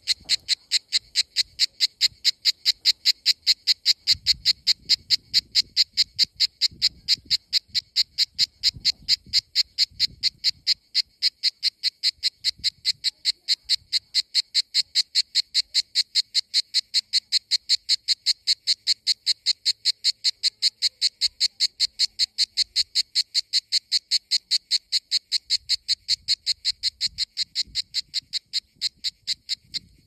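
A Mediterranean cicada (Cicada orni) singing on a pine trunk: a loud, steady series of sharp, high buzzing pulses at about three a second.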